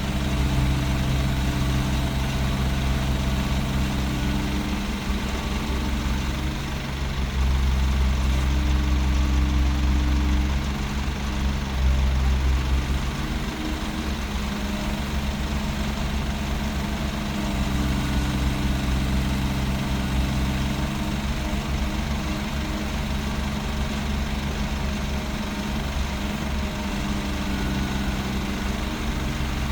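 Diesel engine of heavy earthmoving equipment running steadily with a deep, low hum, growing louder from about seven to thirteen seconds in and again briefly later.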